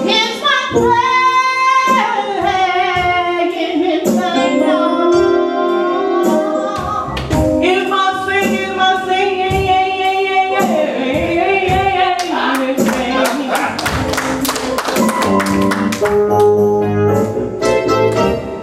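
Gospel singing with instrumental accompaniment: a voice sings long, sliding melismatic lines over keyboard and a steady beat.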